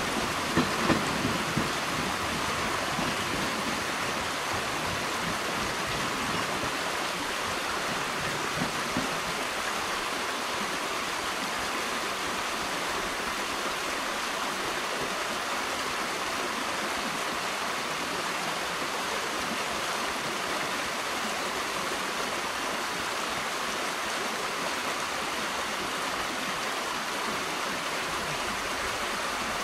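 Steady rushing noise with no pitch, like running water. Low train sounds with a few knocks die away over the first several seconds.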